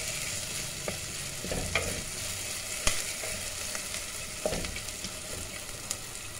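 Onion-tomato masala sizzling in oil in an earthenware pot as the tomatoes soften. A wooden spatula stirs it, with a few sharp clicks where it knocks the pot, the loudest about three seconds in.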